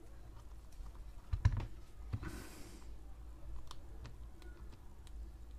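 Faint small clicks and light knocks as a rubber RC short-course tyre on its plastic wheel and a plastic superglue bottle are handled. One louder knock comes about a second and a half in, and a brief hiss follows just after two seconds.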